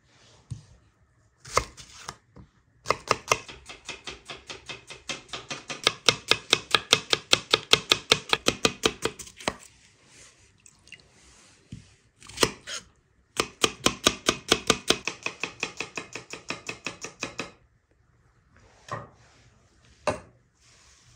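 Knife chopping food rapidly, about seven strokes a second, in two long runs with a few single knocks in between.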